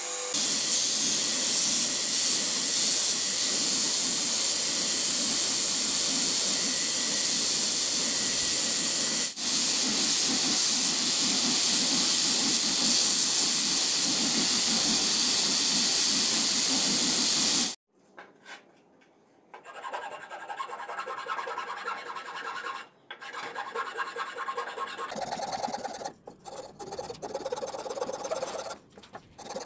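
Belt grinder running while a leaf-spring steel knife blade, held in a wooden block, is ground against the belt: a loud, steady grinding hiss that cuts off suddenly about 18 seconds in. After that come quieter, uneven scraping strokes as the blade is hand-sanded on a bench.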